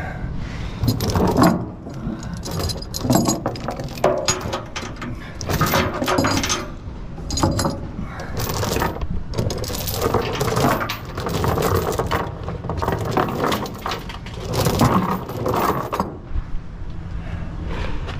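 Metal tie-down chains rattling and clanking as they are handled: an irregular run of jangles and knocks that stops near the end.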